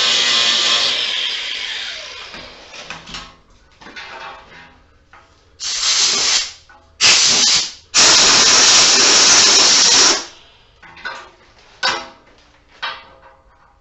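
Several bursts of spraying hiss, the longest about two seconds, each starting and stopping sharply, followed by a few light knocks.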